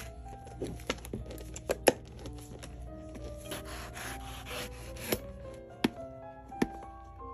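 Hand tools scraping and cutting at a boot's leather sole and heel, with a scraping stretch in the middle and a few sharp clicks. Background music with held notes plays throughout.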